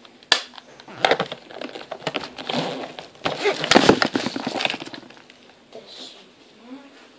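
Rustling, crinkling and knocking of things handled close to the phone's microphone, with a sharp click near the start. The noise is loudest a little past the middle and dies down near the end.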